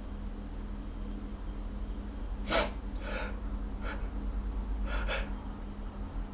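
A man's several short, sharp breaths as a sneeze builds up, the first and loudest about two and a half seconds in. A steady low hum runs underneath.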